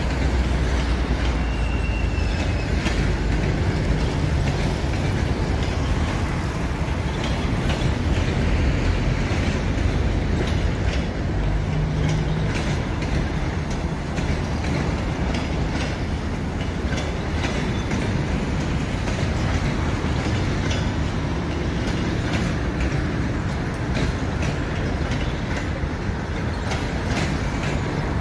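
Passenger coaches rolling slowly into a station: a steady low rumble with scattered clicks of wheels over rail joints, and a short faint high squeal about two seconds in.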